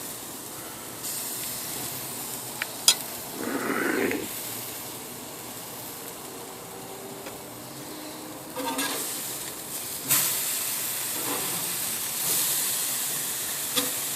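Sauced seitan chops sizzling on a barbecue grill: a steady hiss that swells louder a few times, with a sharp click about three seconds in.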